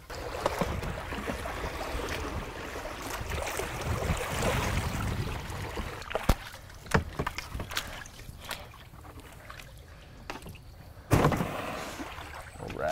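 Canoe paddles pulling through water, with water swishing and scattered sharp knocks as the boat works up a narrow, brushy channel. A sudden loud thump sounds near the end.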